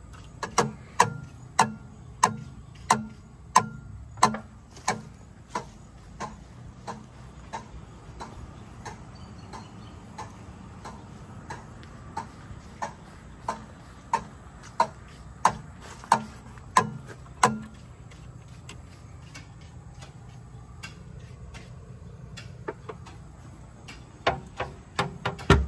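NF-style railroad crossing flasher relay clicking steadily, about one and a half clicks a second, as it switches the crossing lights back and forth. The clicks turn fainter about two-thirds of the way through, then a few louder, closer-spaced clicks come near the end.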